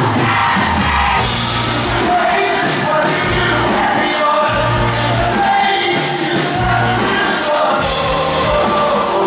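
Live pop music: a man singing over a Nord Electro 6 stage keyboard and band, with held low notes underneath.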